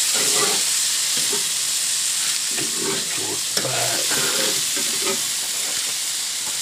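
Venison burger patties sizzling on a grill grate as they are flipped and shifted with a metal spatula, a steady frying hiss. A single sharp click of metal on the grate comes about three and a half seconds in.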